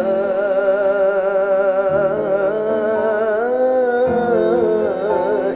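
A man's voice chanting the adhan, the Islamic call to prayer, into a microphone: long, wavering melismatic notes that shift pitch a couple of times.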